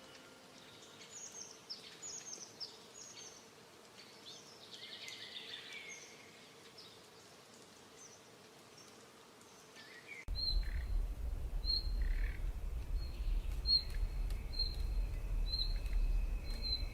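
Wild birds calling, with faint, varied high chirps and short descending notes. About ten seconds in the sound changes abruptly to one bird repeating a short, high chirp a little more than once a second, over a steady low rumble.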